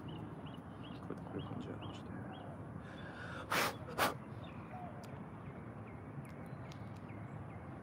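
Open-air lakeside ambience, a steady low hiss with small bird chirps repeating over the first couple of seconds. About halfway through come two short, sharp breathy puffs close to the microphone, half a second apart.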